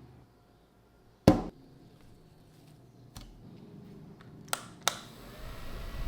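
A sharp knock about a second in, then a few lighter clicks, from a mini desk fan being handled. About five seconds in the fan's small motor starts and runs with a steady airy noise.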